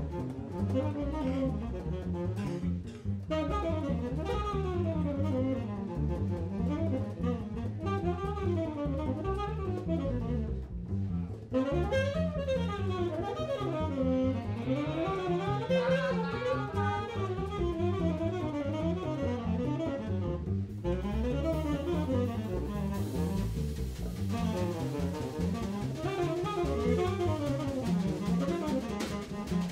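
Bebop jazz quartet playing live, with a tenor saxophone out front running fast, winding lines over double bass, drum kit and guitar.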